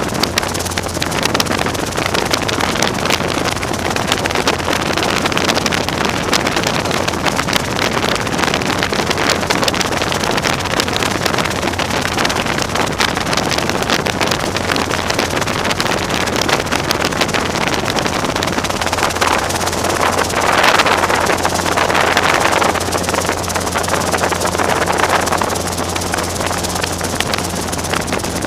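Robinson R22 helicopter running steadily, with its engine and rotor giving a constant low hum under a rush of air noise. A few louder gusts of wind noise come about two-thirds of the way through.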